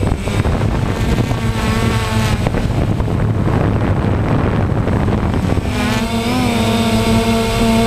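DJI Phantom quadcopter's motors and propellers buzzing steadily in flight. The whine shifts in pitch and settles into a steadier tone about six seconds in.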